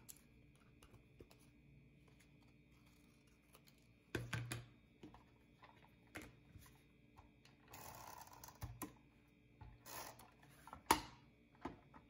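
Faint, scattered clicks and taps of paper-crafting tools handled on a cutting mat: scissors trimming a paper corner and a plastic tape-runner adhesive dispenser picked up and used, with a short scratchy rasp about two-thirds of the way through.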